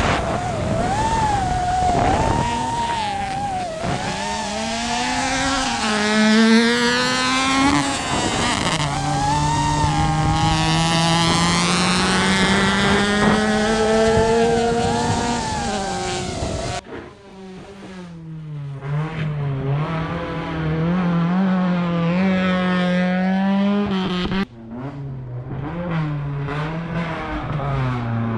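Rally car engine revving hard on full throttle, its pitch climbing through each gear and dropping back at the shifts. The sound cuts abruptly twice to another stretch of the car accelerating and lifting through corners.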